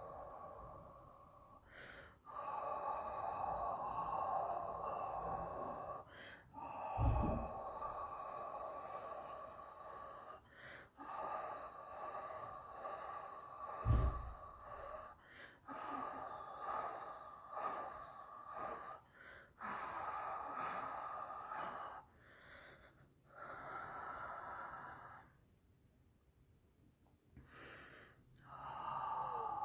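A person breathing loudly in long, noisy breaths of a few seconds each, with short pauses between them and two low thumps partway through.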